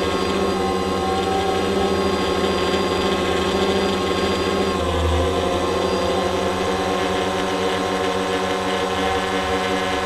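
A quadcopter drone's motors and propellers in flight, heard through the drone's own camera microphone as a loud, steady buzzing whine on several pitches at once. About five seconds in, the pitch dips briefly under a short low rumble, then settles back.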